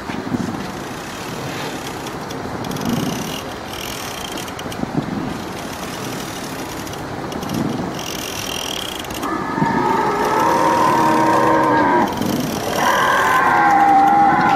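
Battery-powered walking triceratops ride's drive and leg mechanism running, with low thuds roughly once a second as it steps. From about ten seconds in, a wavering pitched sound joins it.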